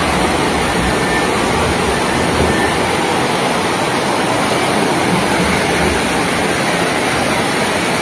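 Fast floodwater rushing down a street in a steady, loud, unbroken wash of noise.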